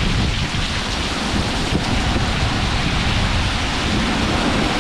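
Hurricane downpour: a steady loud rush of heavy rain with strong gusting wind, the gusts buffeting the microphone as a rumbling roar underneath.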